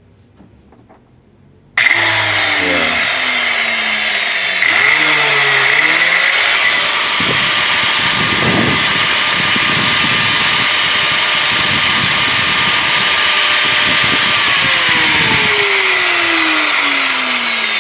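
Ozito electric grinder's motor starting abruptly about two seconds in as it is plugged in, then running at full speed with a steady high whine. It runs with no way to switch it off because its power switch is stuck in the on position.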